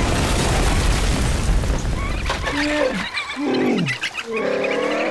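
A heavy crash and rumbling splash of water as the sea creature plunges into the sea. From about halfway through it gives way to several short, gliding cartoon creature calls that rise and fall in pitch.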